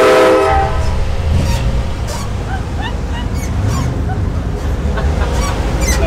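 Truck-mounted train horn sounding a multi-note chord that cuts off about half a second in. A steady low engine and road rumble carries on after it, with scattered short calls.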